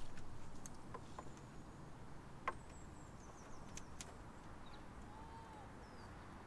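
Quiet outdoor background with a quick series of high, falling bird chirps around the middle and a few faint calls later. A few sharp clicks also sound.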